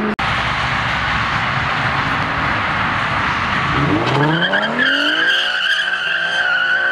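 A car accelerating hard away from the meet: a loud rushing noise at first, then from about four seconds in the engine note climbs steadily in pitch while the tyres squeal with a steady high tone.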